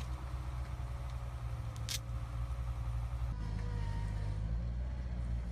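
Steady low outdoor background rumble, with one sharp click about two seconds in; the sound changes abruptly a little after three seconds.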